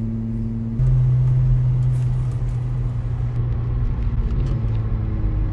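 Car engine and road noise heard inside the cabin: a steady low hum that steps up in loudness about a second in.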